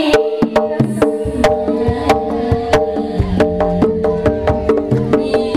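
Javanese jaranan gamelan music played live: hand-drum strokes in a quick, steady beat, about three a second, over ringing pitched gong-chime notes, with deeper drum beats joining about three seconds in.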